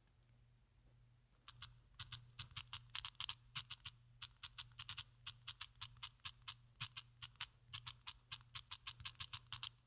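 Typing on a keyboard: quick, even keystroke clicks start about a second and a half in and run at about four to five a second. A faint low hum sits underneath.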